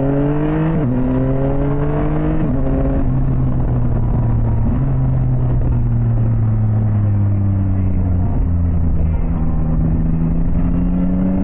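Yamaha Tracer 9 GT's 890 cc inline three-cylinder engine accelerating through two upshifts in the first few seconds, then holding a steady cruise, dropping in revs about eight seconds in and slowly rising again, over a steady rush of wind and road noise.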